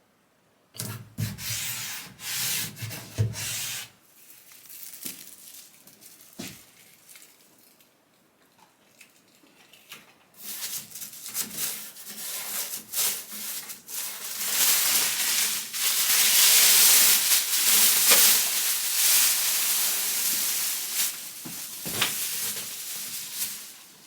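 Hand sanding on wood: abrasive rubbing in uneven strokes, brief at first, then longer and louder from about ten seconds in.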